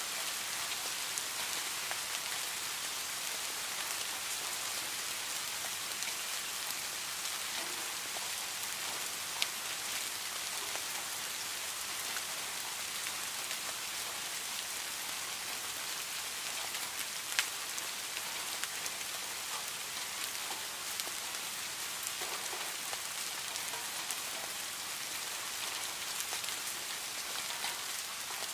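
Steady rain falling on leaves and plants: an even hiss with many small drip ticks, and a couple of louder single drop hits about a third and two-thirds of the way through.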